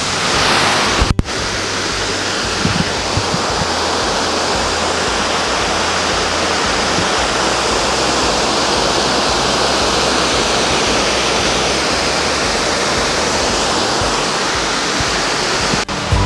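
Waterfall in full flow, a loud, steady rush of falling water with no let-up, briefly cut off for an instant about a second in and again near the end.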